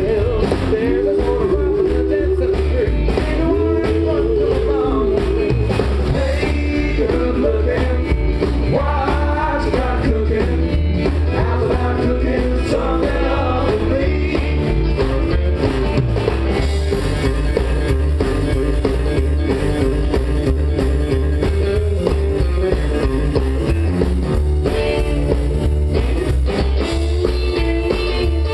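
Live country rock band playing a song: upright double bass and drums keeping a steady beat under a melody line, with a man singing.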